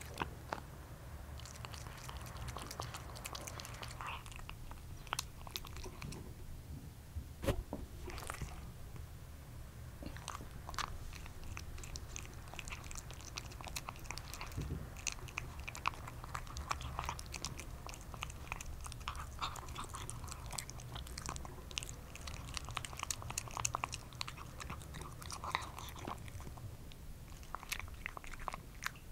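A cat eating from a bowl: steady chewing, with many quick small clicks and crunches.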